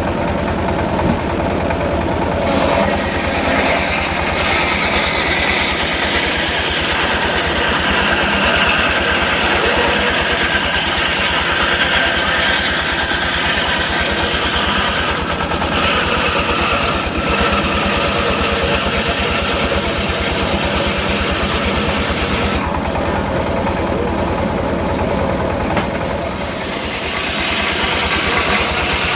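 Engine-driven circular sawmill running steadily. About two seconds in, the blade starts cutting wood, adding a high, noisy saw band over the engine; it breaks briefly twice and stops about seven seconds before the end, leaving the engine running on.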